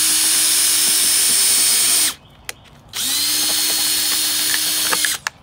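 Electric drill running in two steady bursts as it bores drainage holes through a stack of plastic cups: the first run stops about two seconds in, and the second spins up about a second later and stops near the end.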